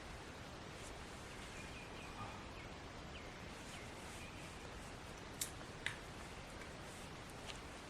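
Faint outdoor background with two short, sharp clicks about half a second apart past the middle and a fainter one near the end, typical of dry sticks and fatwood knocking together as a small campfire is laid.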